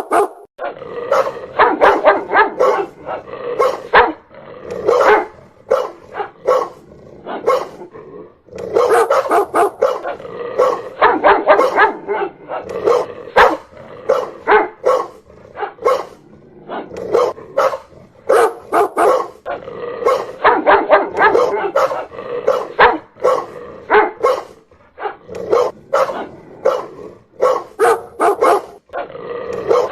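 A dog barking loudly in rapid, nearly continuous runs of barks, broken by a few brief pauses.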